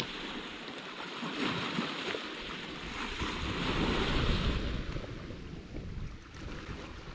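Sea waves washing on the shore, the wash swelling about three to four seconds in and then easing, with wind buffeting the microphone.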